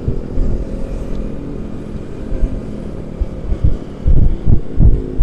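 Honda ADV 160 scooter's single-cylinder engine running steadily while riding. From about three and a half seconds in, several loud low rumbles of wind buffeting the microphone are the loudest sound.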